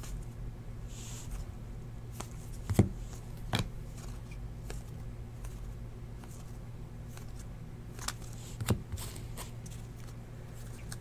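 Trading cards being handled and sorted by hand, sliding against each other, with four sharp clicks as cards snap or tap together: two about three seconds in and two more about eight to nine seconds in.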